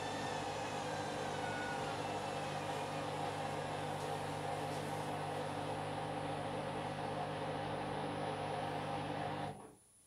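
Candy front-loading washing machine running with a steady hum and a higher whine that falls in pitch over the first couple of seconds, then stopping abruptly near the end.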